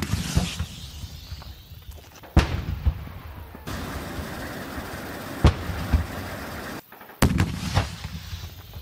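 RPG-7 40 mm rocket-propelled grenade launchers firing: about five sharp blasts at uneven intervals, each trailing off briefly.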